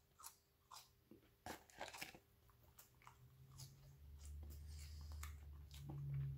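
A person chewing a hot chip (french fry): soft, scattered crunches and mouth clicks. About two-thirds of the way in, a low steady hum comes in underneath.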